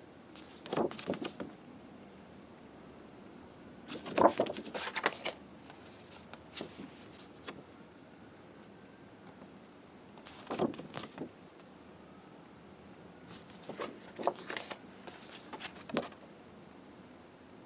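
Postcards being handled and turned over one by one: short clusters of rustling and light tapping of card, a few seconds apart, with quiet between.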